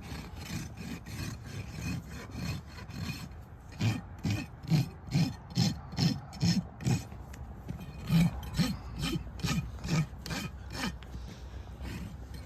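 A donkey braying: a long run of harsh, rasping see-saw strokes, about two a second, loudest through the middle of the bray.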